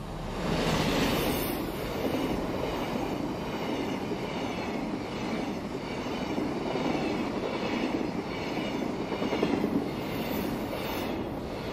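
A long freight train passes close by. Its DD51 diesel-hydraulic locomotive is loudest about a second in, and then a string of container flat wagons follows, with their steel wheels rolling steadily over the rails.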